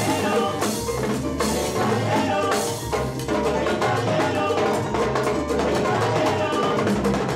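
Live salsa percussion jam: timbales and cymbal struck with sticks and congas played by hand, in a steady Latin rhythm with other pitched instruments underneath.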